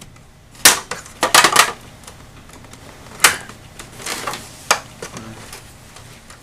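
Glued-in speakers being pried out of a plastic LCD monitor housing with a hand tool. Sharp cracks and clicks of plastic and glue giving way come about half a second in and in a quick cluster around a second and a half, with single ones near three and four and a half seconds and some scraping between.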